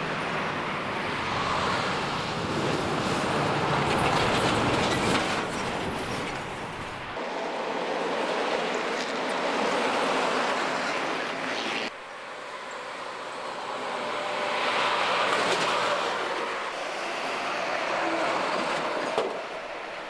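Heavy trucks, among them a Mercedes-Benz box truck, driving past at speed on a worn asphalt highway, one after another, the tyre and engine noise swelling and fading as each goes by. A short sharp bang near the end, typical of wheels hitting a pothole.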